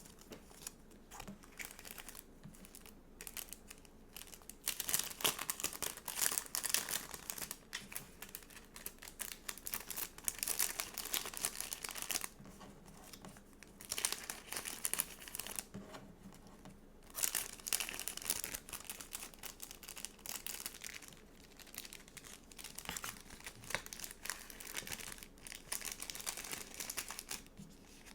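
Stickers and sticker sheets being handled, crinkling and peeling in bursts of a few seconds with short pauses between.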